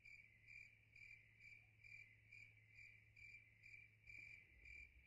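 Faint crickets chirping, an evenly repeating chirp about twice a second: a night ambience.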